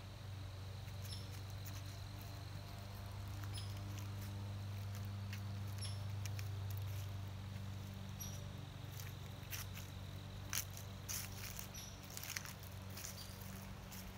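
Footsteps crunching through dry fallen leaves, the crisp crackles coming thickest in the second half, over a steady low hum. Short high squeaky chirps repeat every two seconds or so.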